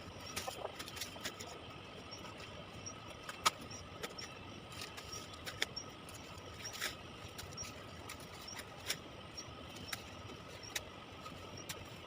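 Quiet outdoor field ambience: scattered faint clicks and snaps, the sharpest about three and a half seconds in, over a faint high chirp repeating at an even pace and a steady faint high tone.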